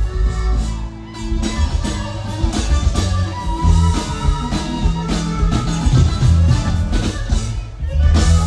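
Live norteño band music: an accordion melody over bajo sexto, bass and drums, keeping a steady beat.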